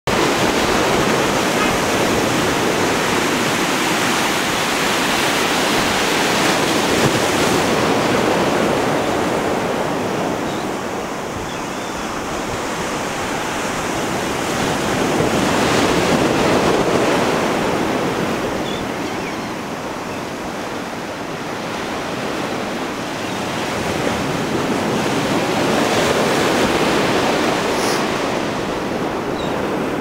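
Small ocean waves, ankle to shin high, washing and breaking in a steady rush of surf that swells and eases roughly every ten seconds.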